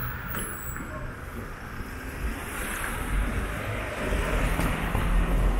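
Street noise with vehicle traffic, its low rumble building louder toward the end.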